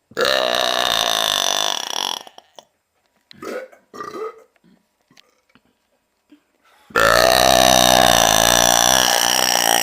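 Two long, loud belches from a person: the first lasts about two seconds, and a second, longer one starts about seven seconds in. A few short, quieter sounds come between them.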